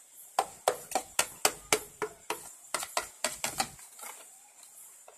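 Metal spoon knocking against a plastic tub, about a dozen sharp taps in quick succession, as wasp larvae and pupae are scraped out into the cooking pot; the tapping stops a little before four seconds in.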